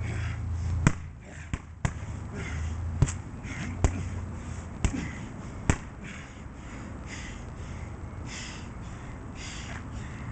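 Gloved punches thudding into a hanging Everlast heavy bag, seven sharp hits at an uneven pace over the first six seconds, then they stop.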